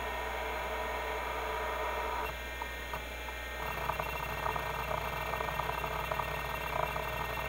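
Seagate ST-251 5.25-inch MFM hard drive running a disk benchmark: a steady spindle whine and hum, dipping briefly a little past two seconds in. From about halfway through, its stepper-motor head actuator seeks with rapid, irregular clicking.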